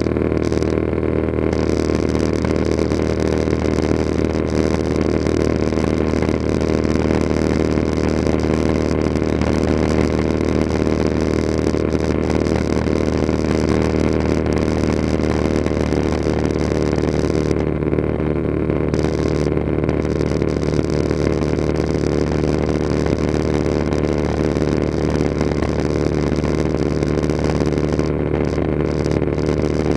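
Cabin noise of a Cessna 182RG in flight: its six-cylinder Lycoming engine and propeller making a steady, loud drone, heard from inside the cabin. About halfway through, one of the low tones shifts slightly.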